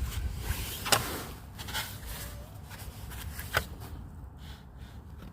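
A few sharp clicks and knocks as a new steering rack bushing and tools are handled, over a low steady rumble.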